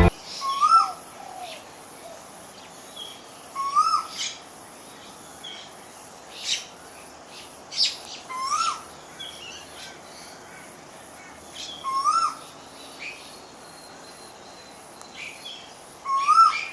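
A cuckoo calling: a short rising whistled note repeated five times, about every four seconds, with other small birds chirping and twittering higher up between the calls.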